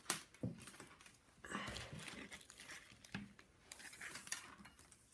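Diamond painting canvas being handled and shifted: faint crinkling and rustling in a few short stretches, with a few small clicks.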